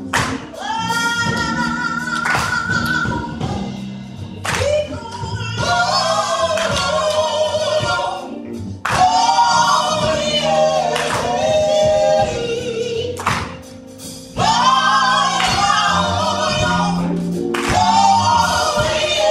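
Live gospel song: a female lead singer sings in long held phrases over band accompaniment, with short breaks between the lines.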